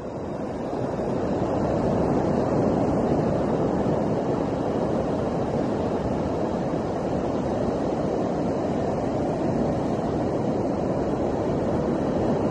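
Steady noise of sea surf washing on a sandy beach, swelling in over the first couple of seconds and then holding even.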